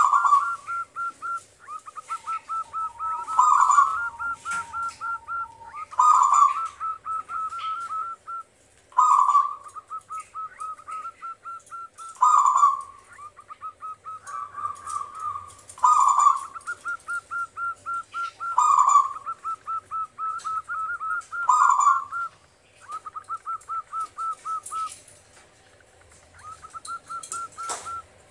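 Zebra dove cooing its song over and over, about every three seconds: each phrase a loud opening coo followed by a quick run of short, even notes. The last couple of runs near the end come without the loud opening coo.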